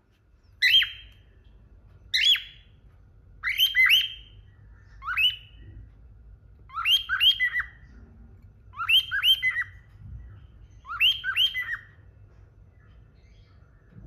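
Cockatiel calling: seven short bursts of sharp rising chirps, one every second and a half to two seconds, most bursts a quick double or triple chirp.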